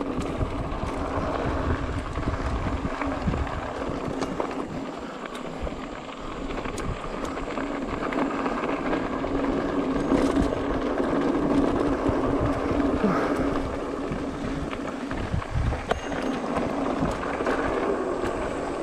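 Mountain bike rolling fast down a dirt trail: tyres on packed dirt and loose stones, with scattered knocks and rattles from the bike and wind noise on the microphone.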